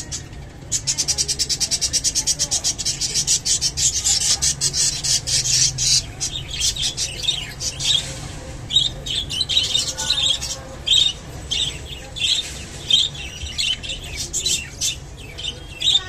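Budgerigar chirping: a fast, even run of high chirps, several a second, for the first half, then single chirps about twice a second.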